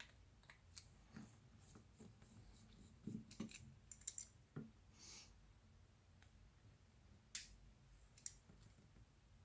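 Faint, scattered small clicks and ticks of a precision screwdriver working the pentalobe screws at the bottom edge of an iPhone 7 Plus, and of the tool being handled. The clicks bunch up in the middle, with two sharper clicks near the end.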